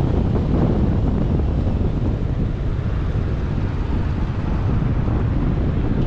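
Wind from a tandem paraglider's flight buffeting the microphone: a steady, low rumble with no breaks.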